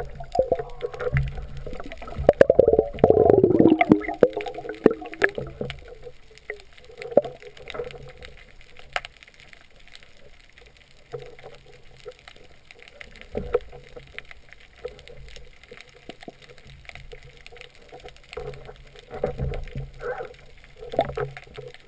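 Water sounds picked up by a camera underwater: muffled water movement with a louder gurgling rumble a few seconds in, and faint scattered clicks.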